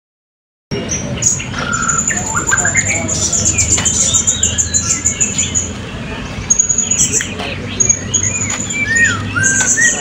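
Many caged blue-crowned hanging parrots (serindit) calling together in a dense mix of sharp chirps and gliding whistles, with one long, high, steady trill in the first half. A steady low hum runs underneath.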